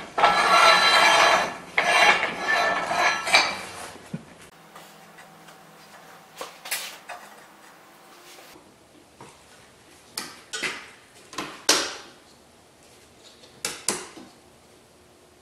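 Heavy steel parts scraping and rattling against each other for about three seconds, then several separate sharp metal clinks and clanks.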